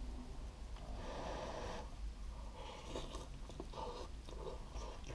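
A person slurping instant ramen noodles off chopsticks: three hissy slurps, the first about a second in.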